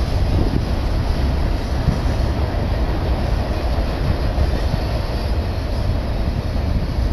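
Union Pacific double-stack container train passing at speed: a steady rumble of steel wheels rolling on the rails under the loaded well cars.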